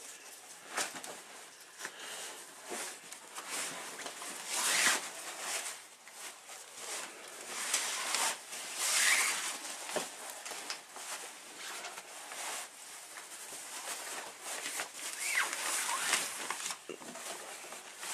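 A crib sheet being pulled and fitted over a mattress: uneven rustling and swishing of fabric, with a few light knocks and taps.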